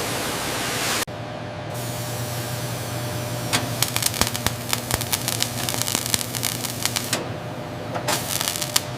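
A steady hiss that cuts off abruptly, followed by a low steady hum with many irregular sharp clicks and taps, like small tools working. The sound breaks off abruptly twice more.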